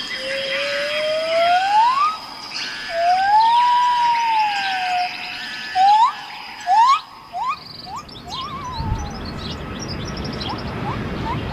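Birds singing: slow whistled notes that glide upward and arch, then several short, loud rising whistles and a brief trill, over busy high chirping and a steady high tone. A low rushing noise comes in near the end.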